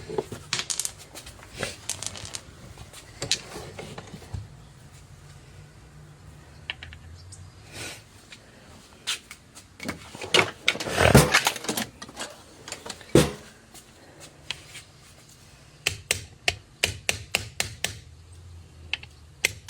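Scattered clicks and knocks of metal tools and parts being handled at a bench vise, with a cluster of heavier knocks about halfway through and a run of quick light taps, two or three a second, near the end.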